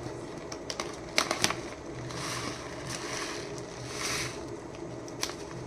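Plastic pouch of powdered malt drink being handled, rustling and crinkling, with a few sharp crackles.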